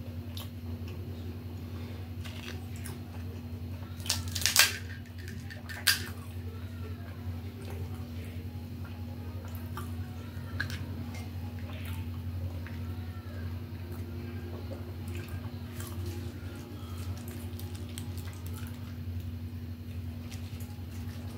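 Eating sounds from hand-eaten golgappa (crisp pani puri shells): a couple of sharp crunches about four and six seconds in, then faint chewing, cracking and handling clicks. A steady low hum runs underneath.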